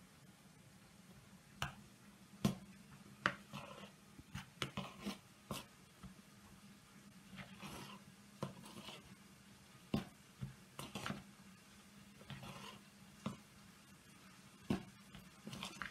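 Metal spoon stirring crumbly cottage cheese in a plastic bowl: soft, irregular clicks and scrapes as the spoon knocks and drags against the bowl.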